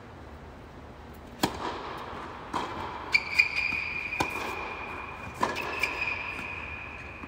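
Tennis rally on an indoor hard court: a string of sharp pops from racquet strikes and ball bounces, about seven in all. A high steady tone comes in about three seconds in and keeps going.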